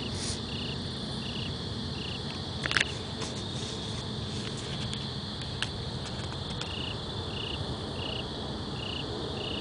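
Night insects chirping: a steady high trill under a regular chirp about twice a second, which fades out for a few seconds in the middle. A sharp click stands out about three seconds in, with a fainter one a few seconds later.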